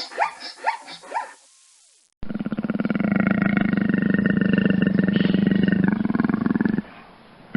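A dog barking in a quick run of short, rising yelps for about a second. After a short pause comes a long, steady, rasping growl from a big cat lasting about four and a half seconds, which cuts off near the end.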